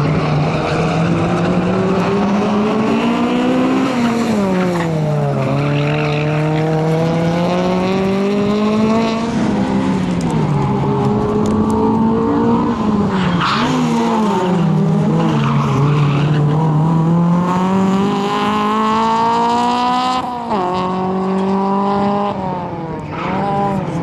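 Honda Civic hatchback's four-cylinder engine driven hard, revs climbing and falling back again and again as it accelerates, brakes and turns, with some tyre squeal.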